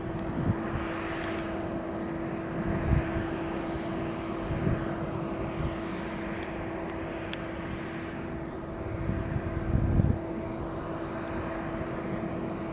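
Jet engines of an Air New Zealand Airbus A320 running, a steady hum over an even rushing noise. Low rumbling swells come and go, the strongest about ten seconds in.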